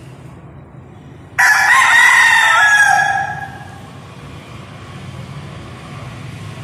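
A gamecock crows once, a single loud call that starts suddenly about a second and a half in and lasts about two seconds.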